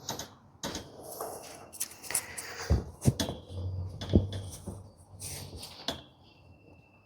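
Handling noise as a damp knitted sweater is stretched and pinned out on blocking mats: rustling with several sharp knocks, the loudest in the middle.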